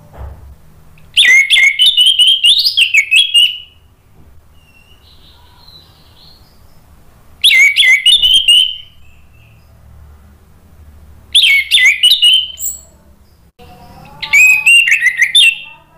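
Orange-headed thrush singing: four loud bursts of fast, varied warbling, each a second or two long, with pauses of a few seconds between them.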